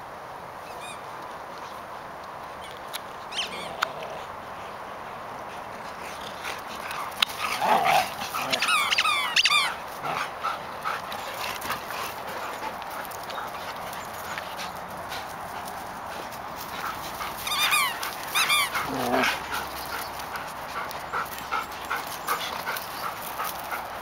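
Belgian Shepherd (Tervuren) dogs barking and yelping in play, in two loud bursts of rapid high-pitched yips, the first about seven seconds in and the second about eighteen seconds in.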